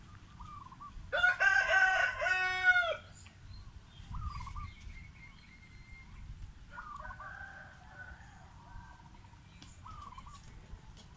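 A rooster crowing once, about a second in, in two linked parts lasting under two seconds; this is the loudest sound. Short faint bird chirps repeat throughout, with a fainter fowl call later on.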